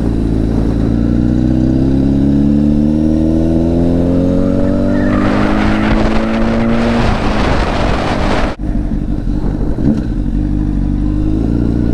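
Honda CBR1000RR sportbike's inline-four engine accelerating under load, its pitch rising steadily for about seven seconds while wind noise on the microphone builds. The sound drops out sharply for a moment about eight and a half seconds in, then the engine settles into a steady lower drone.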